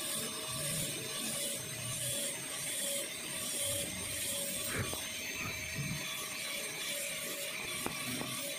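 High-speed dental handpiece with a tapered round-end diamond bur grinding into a typodont molar: a steady grinding hiss with a thin high whine, pulsing in short strokes nearly twice a second as the occlusal depth grooves are cut between the cusps.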